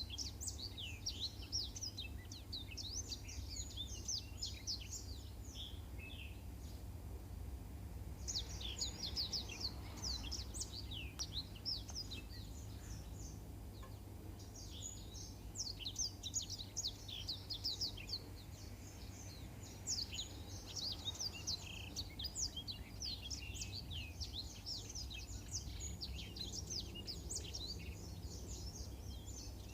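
Blackthroat (black-throated canary) singing long, fast twittering phrases of high chirps and trills, broken by short pauses, over a steady low hum.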